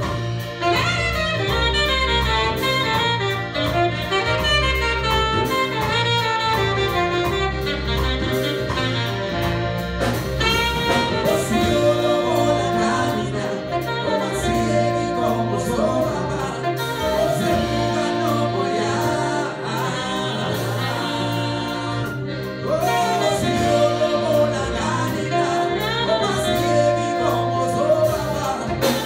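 Live jazz band playing: a man sings lead over saxophone, electric keyboards, a Pearl drum kit and guitar.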